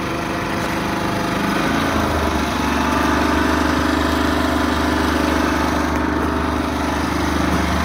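Cummins inverter generator running steadily; about two seconds in its pitch steps up a little, and it then holds an even hum.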